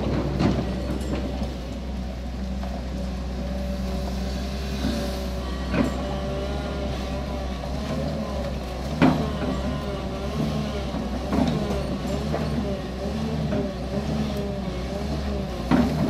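JCB JS200N excavator's diesel engine running under work, with a wavering whine over a steady low drone and a few sharp metallic knocks.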